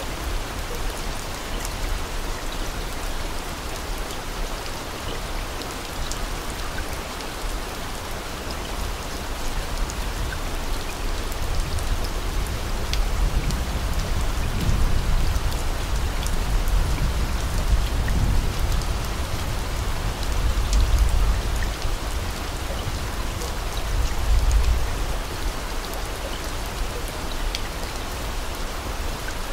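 Steady rain: a dense, even hiss with scattered drop ticks, and a low rumble that swells several times through the middle stretch.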